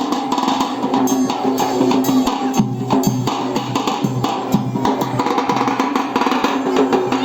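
Loud music driven by drums and hand percussion, with dense, steady beats and no pause.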